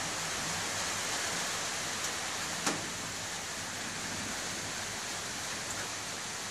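Steady rain falling, an even hiss, with one sharp tick about two and a half seconds in.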